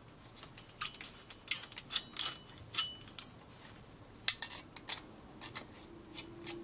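Small metallic clicks and clinks of a cheap butane gas torch's brass burner tube and valve head being handled and fitted together, irregular, with the sharpest click about four seconds in.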